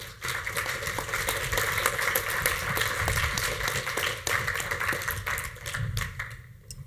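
Audience applauding: many hands clapping at once, starting suddenly and dying away near the end.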